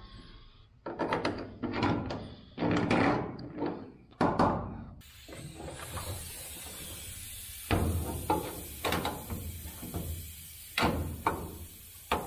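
Sharp metal knocks and clunks as parts and a huck bolt tool are handled against a truck's steel hood support bracket: a quick run of them in the first few seconds, then a few single knocks spaced out later.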